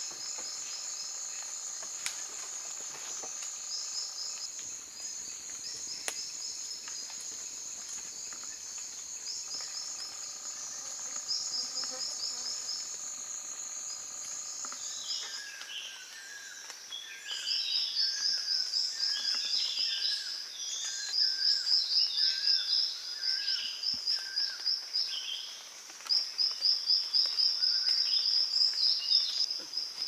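Tropical rainforest insects calling: a steady high buzz with repeated pulsed chirping trills. About halfway through the chorus changes to louder, rapid pulsed insect trills with scattered bird calls among them.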